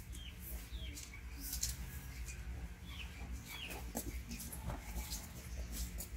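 Short high-pitched animal chirps, several falling quickly in pitch, scattered over a low steady hum with a few light clicks.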